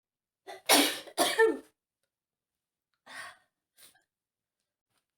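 A woman sneezing twice in quick succession, after a short catching breath, from dust. A quieter breathy sound follows about three seconds in.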